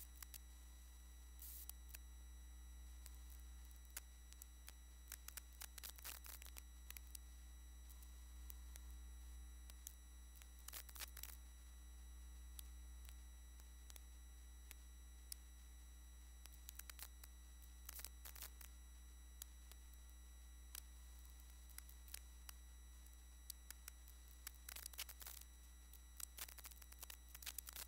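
Near silence: a steady low electrical hum with faint steady high tones, broken by scattered faint clicks of a computer mouse and keyboard, with a run of typing near the end.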